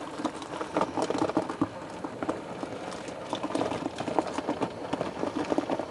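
Traxxas TRX-4 scale rock crawler clambering up a rock face: its tyres and chassis make an irregular patter of clicks and knocks against the stone.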